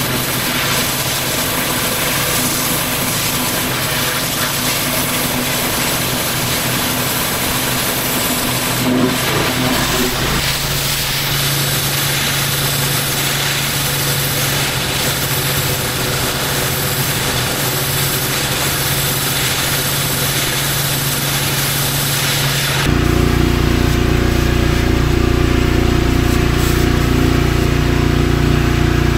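Pressure washer engine running steadily over a constant high hiss. The sound changes abruptly about ten seconds in, and again near the end, where it becomes louder and deeper.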